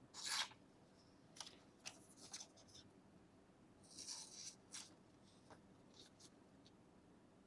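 A Victorinox Ranger Grip pocket knife's factory-sharpened plain edge slicing paper: a series of short, faint papery swishes, the loudest about a quarter second in and a longer one about four seconds in, testing how sharp the edge is out of the box.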